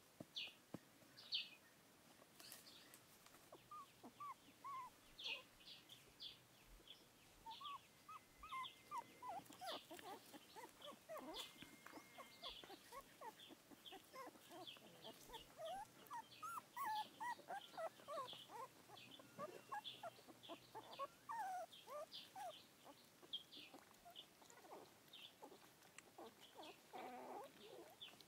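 Newborn puppies whimpering and squeaking in many short, faint cries that slide up and down in pitch, coming thicker after the first few seconds, with high bird chirps over them.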